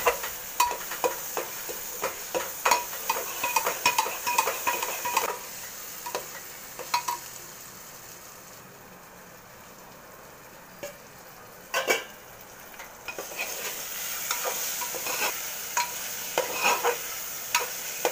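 Metal ladle stirring a frying onion-tomato masala in an open pressure cooker, clinking and scraping against the pot over a steady sizzle. The stirring eases off for a few seconds midway, then picks up again.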